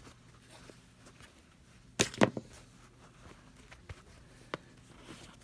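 Hands handling a fabric flat shoe: quiet handling noise with a sharp double click-and-rustle about two seconds in and a few faint ticks after.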